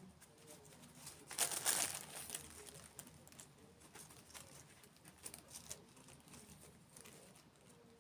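Close-up crinkling and crackling, with a loud burst about a second and a half in, then scattered small crackles and clicks.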